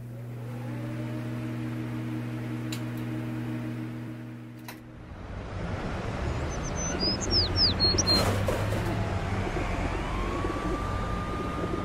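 A low steady hum for about the first five seconds gives way to a noisy outdoor ambience. A few quick, high, falling bird chirps come just past halfway. Near the end a long tone slides up and holds, like a distant siren.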